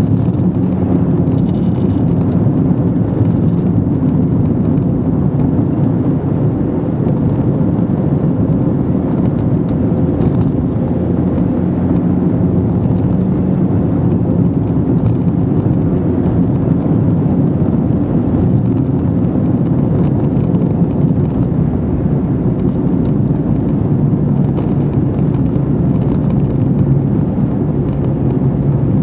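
Steady engine drone and road noise of a car, heard from inside the cabin while driving. The engine note drops a little in the last few seconds.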